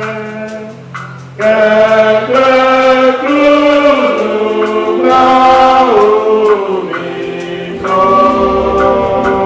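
Voices singing slow church music in long held notes that change pitch every second or so, breaking off briefly about a second in and resuming louder.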